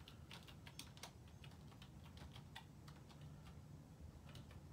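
Faint computer-keyboard typing: quick, irregular runs of key clicks over a low background hum.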